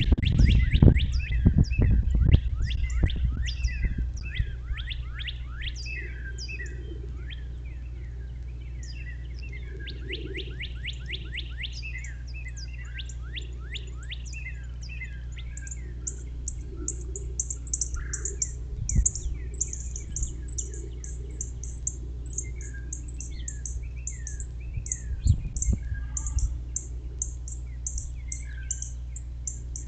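Wild songbirds singing, with runs of quick, steeply falling whistled notes through the first half. For the second half a rapid, evenly repeated series of high-pitched chirps runs on. A steady low hum lies underneath, with a few low rumbling thumps, strongest in the first couple of seconds.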